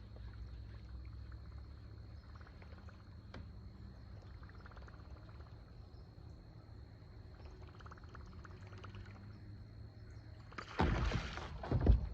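A bass blowing up on a topwater lure: a sudden loud splash on the water surface about eleven seconds in, peaking just before the end, after a long stretch of faint ticking over a low steady hum.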